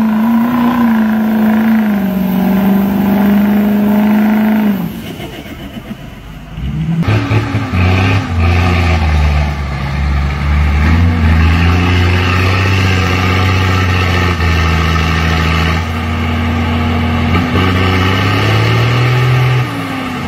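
A diesel pickup truck's engine revving hard through a mud pit, held at a high note for about five seconds and then dropping off. Then a military cargo truck's engine labours at a lower, steadier note as it pushes through deep mud, rising a little near the end.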